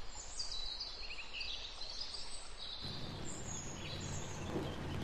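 Faint outdoor ambience with small birds chirping. About three seconds in, a low steady rumble joins in.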